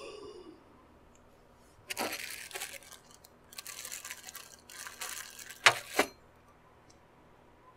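Small clear plastic bag of installation hardware crinkling and rustling as it is handled, in three stretches, with two sharp clicks near the end.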